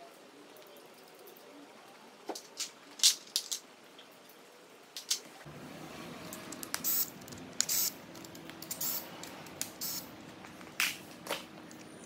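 Scattered sharp metal clicks and clinks as parts and tools are handled on a 6.0 L L98 LS V8 block with its heads off, ending with the lifter guide trays and lifters being lifted out of the valley. A steady low hum comes in about halfway.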